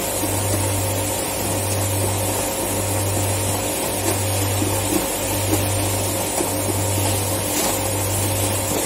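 Plastic-processing machinery running steadily: a loud low hum that dips briefly about every second and a quarter, with a steady whine above it and a wash of mechanical noise.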